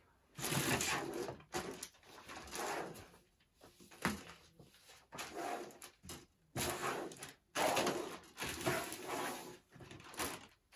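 Plastic bags of model-kit parts rustling and crinkling in uneven bursts as they are picked up and laid out on a table.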